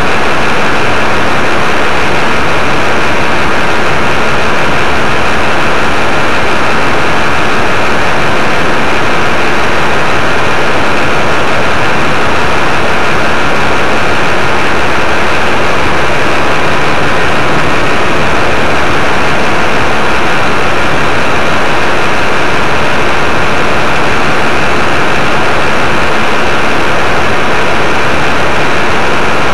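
Paramotor engine and propeller running steadily in flight, heard as a loud, even drone mixed with wind rushing over the camera's microphone.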